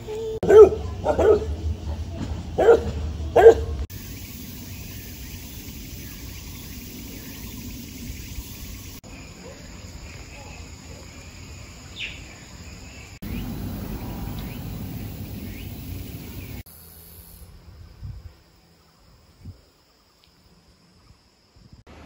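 A calico cat meowing four times in short, loud calls, followed by steady quiet outdoor background noise.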